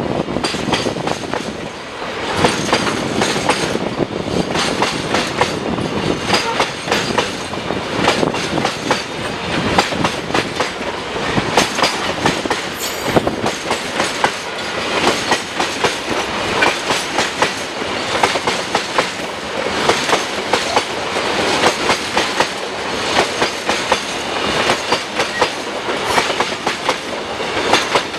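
Wheels of a long freight train of empty flat wagons rolling past, clattering continuously over the rail joints.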